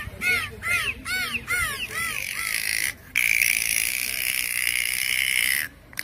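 Dolphin whistles: a quick run of short rising-and-falling chirps, about two a second, then a long steady whistle broken once by a short gap.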